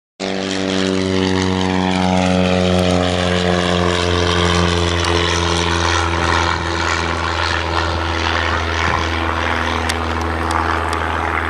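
Boeing B-17G Flying Fortress on landing approach, its four Wright R-1820 Cyclone radial engines and propellers running in a steady, loud drone. The pitch slowly sinks as it passes.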